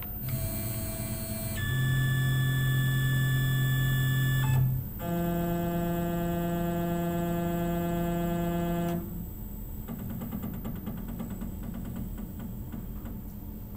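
Tormach CNC mill's axis stepper motor whining as the table is jogged to bring the Haimer probe against the hole wall. There are two steady tones: one runs about four and a half seconds and changes pitch once, and after a brief break a higher tone runs about four seconds before it stops.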